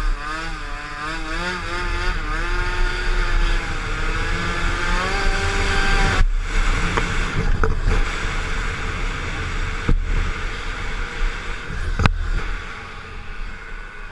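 Small scooter engine revving with a wavering pitch, then climbing steadily as it accelerates, and dropping away suddenly about six seconds in. After that, wind rush on the helmet camera and two sharp clicks.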